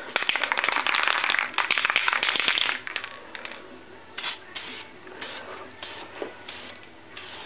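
Krylon aerosol spray paint can putting a second coat of paint on plastic trim: a loud spell of rattling and spraying for the first two and a half seconds, then quieter short sprays about twice a second.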